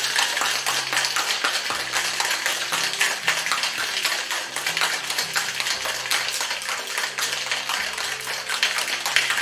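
Ice rattling hard inside a metal cocktail shaker being shaken vigorously, a loud continuous clatter of rapid impacts. Faint background music underneath.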